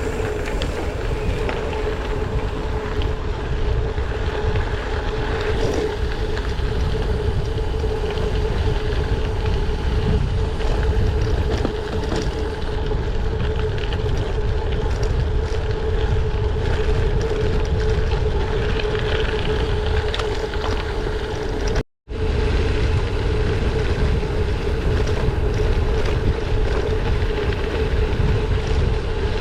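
Wind buffeting the helmet or bike camera's microphone, mixed with gravel-bike tyres rumbling over a dirt road during a fast descent, with a steady hum throughout. The sound cuts out for an instant about two-thirds of the way through.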